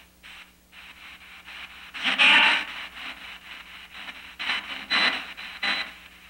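P-SB7 spirit box sweeping the FM band, played through a small Blackstar amplifier: choppy bursts of radio static, cut into short pieces as it steps from station to station. The loudest burst comes about two seconds in.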